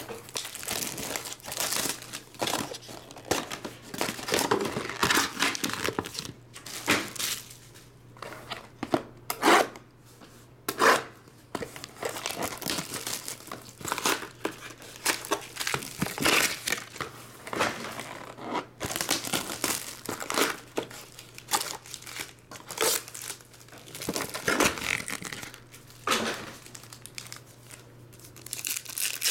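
Plastic shrink wrap being torn off a trading-card box and crinkled in the hands, then foil card packs being handled and torn open: irregular crinkles and rips throughout, over a faint steady low hum.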